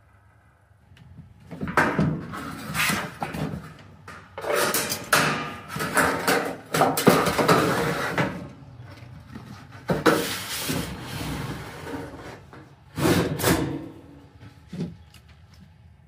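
Irregular scraping, sliding and knocking of hard parts being handled, in a dozen or so bursts about a second each, with a few sharp knocks, stopping near the end.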